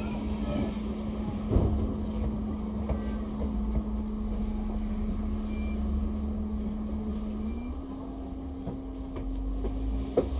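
Double-decker bus running, heard from inside the cabin: a steady rumble and hum with one held low tone that steps up a little about three-quarters of the way through, and a single knock about a second and a half in.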